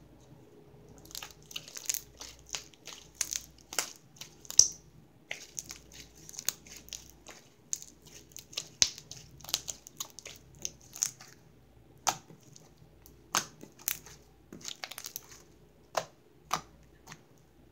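Blue butter slime being stretched, squeezed and kneaded by hand, giving off an irregular stream of short sticky clicks and pops.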